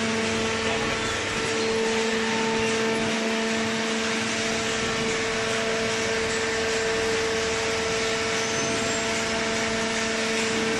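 Hydraulic cardboard baler running: its electric motor and hydraulic pump give a steady hum and whine that holds one pitch throughout.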